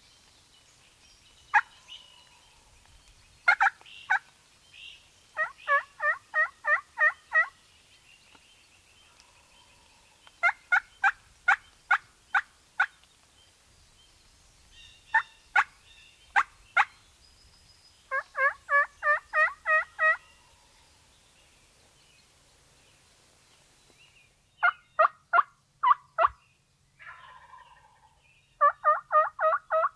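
Turkey calling close by: runs of hen-style yelps, about four notes a second, alternate with runs of short, sharp cutts, each run a couple of seconds long with pauses of a few seconds between. This is the hunter working a turkey mouth call.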